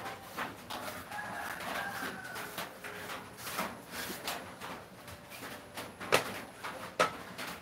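A rooster crows once, one long call starting about a second in. Two sharp knocks near the end are the loudest sounds.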